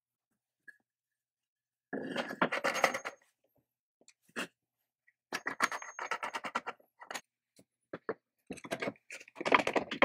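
Metal base of a chain mortiser being handled on a wooden workbench: scrapes, knocks and clicks of metal against wood as it is set on a wooden block and clamped down. They come in short irregular bursts, starting about two seconds in.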